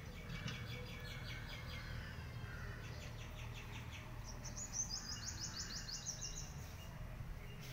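Small birds singing in rapid trills of quickly repeated short notes, several in turn, the longest and highest about four and a half seconds in, over a low steady rumble.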